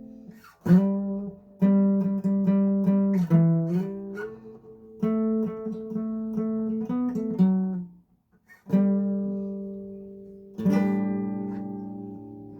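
Acoustic guitar chords strummed and left to ring and fade, one after another, with a short break about eight seconds in before the playing resumes.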